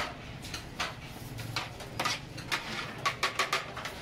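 Plastic takeaway boxes and serving utensils clattering on a large steel serving tray as biryani is packed: a run of sharp clicks and knocks, with a quick cluster of them about three seconds in.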